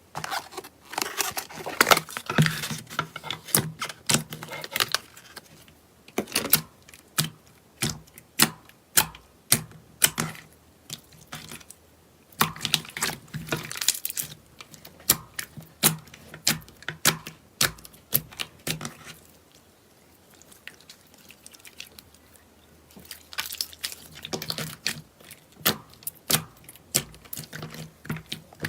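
Slime being squeezed and pressed by hand, giving rapid strings of sharp, sticky clicks and pops in several bouts with short pauses between.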